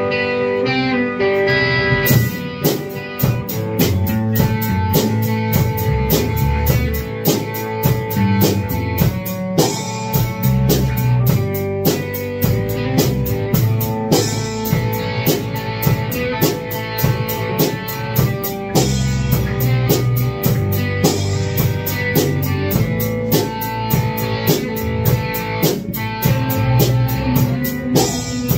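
Live rock jam: electric guitars playing together, joined about two seconds in by a drum kit keeping a steady beat.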